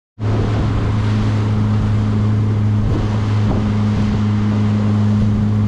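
Outboard motor of a fishing boat running at a steady cruising speed, a constant low drone, with wind on the microphone and the rush of water from the wake. It cuts in abruptly just after the start.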